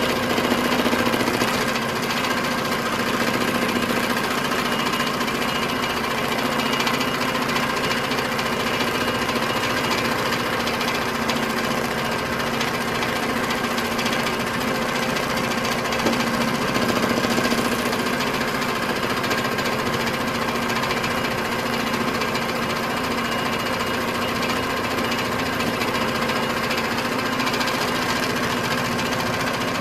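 Baby Lock Tiara sewing machine running steadily, its needle stitching rapidly through painted fabric in free-motion embroidery.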